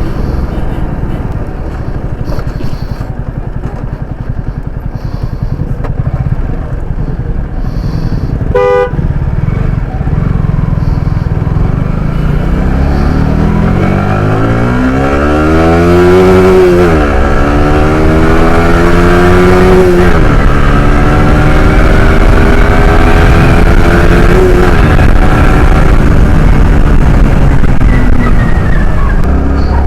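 Yamaha R15 motorcycle's single-cylinder engine heard from the rider, with low wind rumble on the microphone. A short horn toot comes about nine seconds in. Then the engine revs up through the gears: its pitch climbs, drops sharply at a shift, climbs again, and holds fairly steady at speed.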